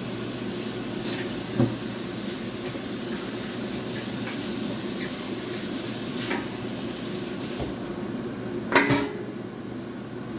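Cookware being handled in the kitchen: a few short clinks of utensils or pots over a steady hiss, then a louder metal clatter of a pot or pan near the end. The hiss stops just before the clatter.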